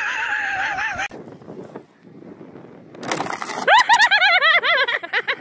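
A high, wavering human cry that cuts off about a second in. Near the end comes a louder high-pitched voice warbling rapidly up and down.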